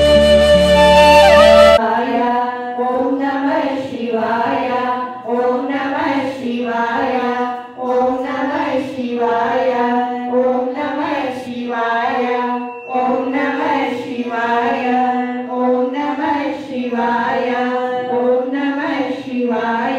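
A short stretch of instrumental music cuts off abruptly about two seconds in. It gives way to a sung devotional chant, voices over a steady held note, going on in repeated phrases.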